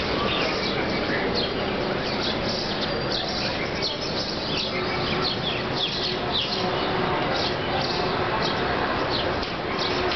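Many small birds chirping in short, quick falling notes, over a steady background of outdoor noise.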